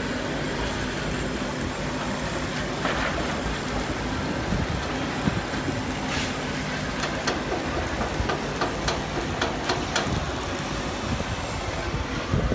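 Construction-site noise: a steady low machinery drone, with several sharp knocks in the second half.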